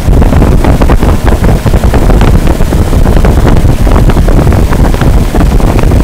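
A 1995 WeatherKing Select 10 5-ton central air conditioner's outdoor condenser running steadily just after startup, its condenser fan and Copeland reciprocating compressor going together. The fan's upward air blast buffets the microphone held over the top grille, giving a loud, rumbling rush.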